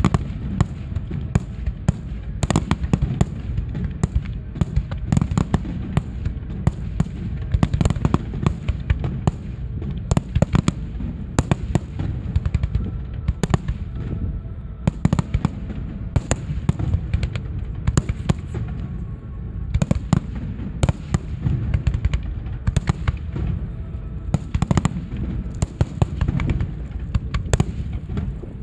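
Fireworks display: a rapid, continuous barrage of sharp bangs and crackles over a steady low rumble.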